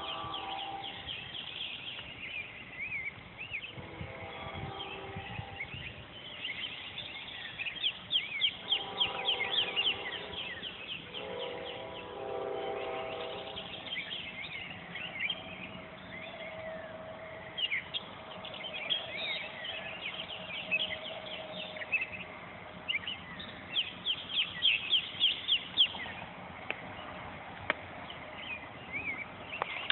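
A train horn sounds four blasts, the last two longer, over birds singing with quick chirps and repeated trills.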